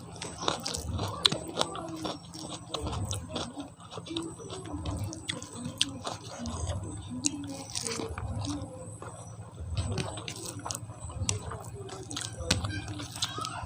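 A person chewing a mouthful of food close to the microphone: a meal of pork curry, rice and papad. The chews come about once a second, with small sharp clicks and crunches among them.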